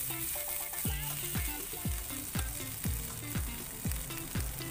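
Butter melting and sizzling in a hot nonstick frying pan. Background music plays over it, and a deep kick-drum beat comes in about a second in, thumping about twice a second.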